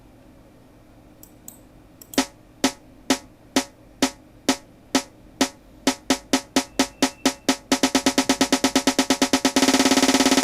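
Snare-drum roll build-up programmed in FL Studio. Single snare hits start about two seconds in at about two a second, double in speed, double again, and merge into a fast continuous roll near the end.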